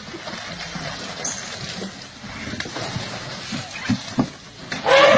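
Baby elephant splashing and sloshing water in a plastic tub, with a couple of short knocks. Near the end a loud, pitched cry starts.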